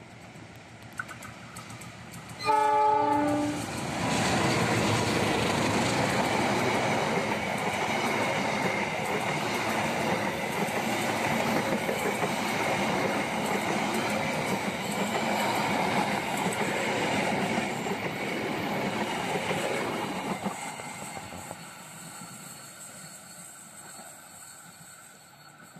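The Argo Wilis passenger train passing close by. A short blast of the diesel locomotive's horn sounds about two and a half seconds in. Then come the noise of the locomotive and its coaches running on the rails, holding steady for about seventeen seconds and fading as the train moves away.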